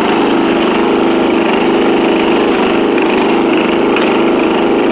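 Riding lawn mower engine running steadily and loud through a custom exhaust as the mower drives along.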